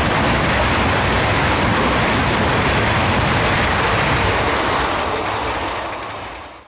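Empty tank cars of a freight train rolling past on steel rails, a steady rumble and clatter of wheels on track. It fades away over the last couple of seconds as the end of the train moves off, then cuts off.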